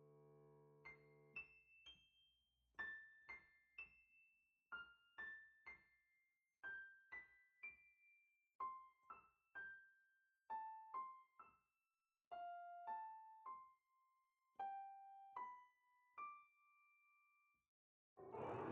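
Quiet background piano music: a held chord fading, then a slow melody of single notes. A short burst of a sound effect comes in right at the end.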